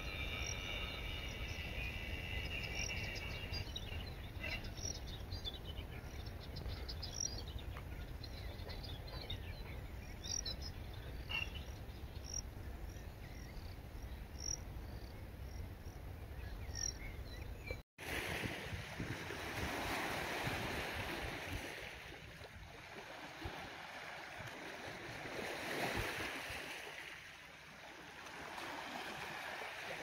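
Steady low rumble with scattered high chirps and a short trill at the start. After a sudden cut about two-thirds of the way through, Black Sea surf washes onto the shore, swelling and falling about every six seconds.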